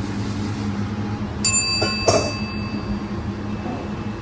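A service bell struck once about a second and a half in, ringing with a clear high tone that fades over about two seconds. A short clatter comes just after the strike, all over a steady low hum.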